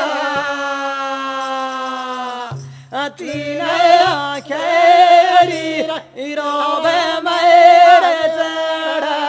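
Men singing a Banjara devotional chant in long held notes that slide in pitch, with two short breaks in the singing about three and six seconds in.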